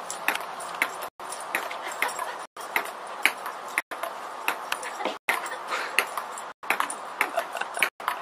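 Table-tennis ball clicking off the table and paddle in a quick rally, several sharp pings a second. The sound cuts out completely for an instant about once a second.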